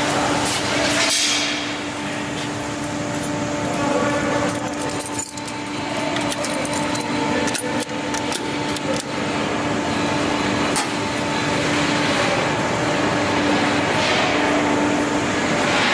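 Steady electrical hum from a just-powered lathe's electrical cabinet, with scattered sharp clicks and knocks.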